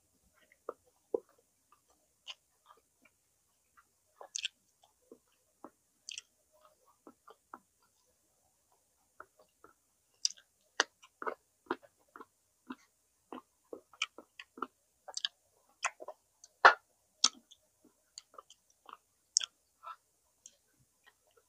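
Mouth sounds of someone eating smoked chicken with rice: chewing with short wet clicks. They come sparsely at first and thick and fast from about halfway through.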